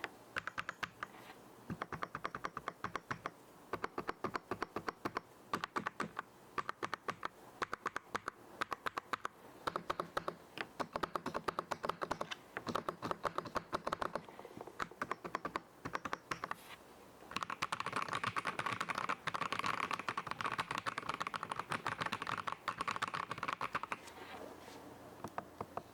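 Typing on a Skyloong GK104Pro mechanical keyboard with KTT Rose linear switches: quick runs of key clicks with short pauses, then a faster, denser run of keystrokes near the end.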